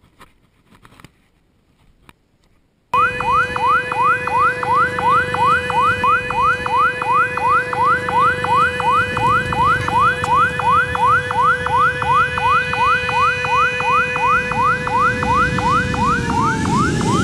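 A few seconds of quiet outdoor ambience, then, cutting in suddenly about three seconds in, a Boeing 737 airliner on low approach. Its jet engines whine with steady tones and a quick rising chirp repeated about twice a second, and the pitch of it all drops as the plane passes by near the end.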